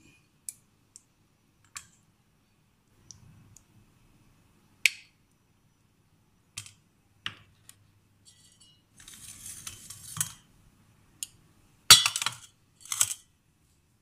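Small stainless-steel bowls, a glass dish and a spoon clinking and knocking against a steel plate as dishes of apple halwa are set down: scattered separate clinks, a longer scraping stretch about two-thirds through, and the loudest knocks near the end.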